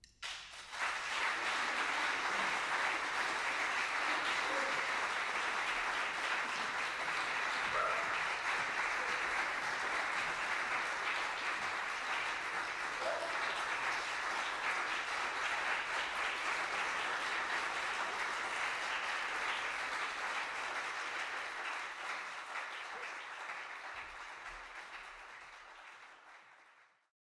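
Audience applauding. It breaks out suddenly about a second in, holds steady, then thins out and cuts off near the end.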